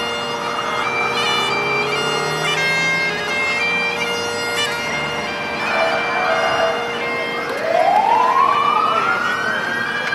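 Bagpipes playing a tune over their steady drone. About two-thirds of the way in a siren starts up and drowns them out, one long wail that rises and begins to fall near the end.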